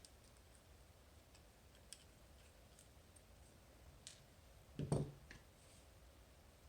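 Faint, sparse clicks of small lock pins and tools being handled while pins are taken out of a Medeco lock's pin chambers, with one louder short knock about five seconds in.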